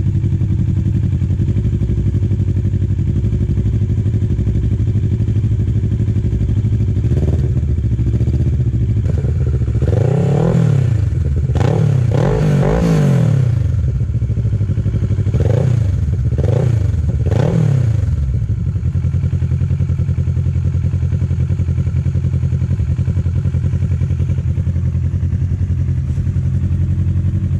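Kawasaki ER-6n's parallel-twin engine running through a Hurric RAC1 aftermarket exhaust. It idles steadily, then gives a run of about seven quick throttle blips, each rising and falling in pitch, before settling back to idle.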